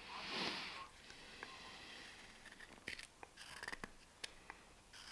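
Carving knife cutting a green-wood spoon. One strong slicing cut comes in the first second and a quieter scraping cut follows. After that, a run of short, sharp little cuts and clicks from the blade.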